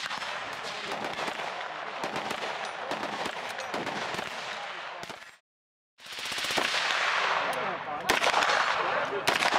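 Continuous gunfire on a busy range, many guns firing in overlapping strings of shots. The sound drops out briefly just past halfway, and a few louder, closer shots ring out near the end.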